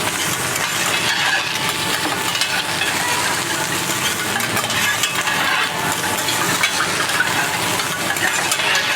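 Food sizzling on a hot teppanyaki iron griddle while metal spatulas stir and scrape it, with steady clinking and tapping of metal on metal.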